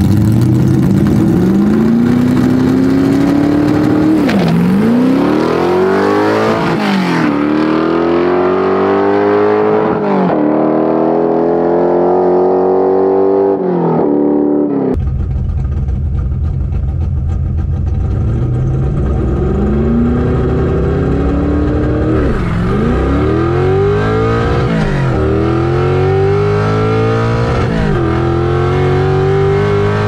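Loud 410-cubic-inch small-block Ford V8, a bored-and-stroked 351 Windsor, in a 1986 Fox-body Mustang GT at full throttle, climbing in pitch through the gears of its manual transmission. The pitch falls sharply at each upshift and climbs again: about four shifts in the first half. About halfway in, the sound switches to a pass heard from inside the car, rising through three more shifts.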